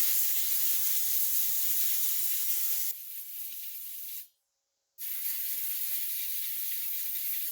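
A pressurised spray hissing in two long stretches while the chainsaw is being cleaned. It breaks off to dead silence for under a second in the middle.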